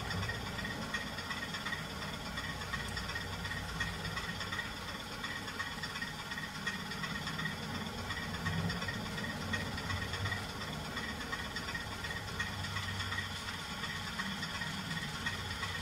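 Model railway goods train, a small steam-outline locomotive hauling wagons, running along the track: a steady whir and rattle with a faint, evenly repeating ticking.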